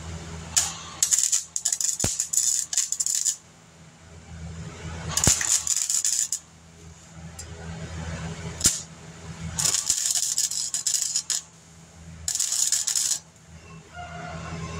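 Welder laying short tack and stitch welds on thin sheet-steel body panels of a 1950 Chevy truck. It comes as five separate runs of crackling, sputtering arc noise, each about one to two seconds long, over a steady low hum, with a few sharp clicks in between.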